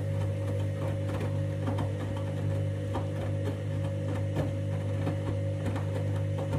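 Candy washing machine on its main wash: the motor hums steadily while the drum turns, with irregular soft knocks and clicks as the bathrobes tumble inside.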